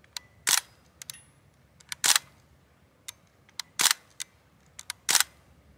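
Crosman A4P CO2-powered BB pistol fired single shots in semi-auto: four sharp pops about a second and a half apart, with fainter clicks between them.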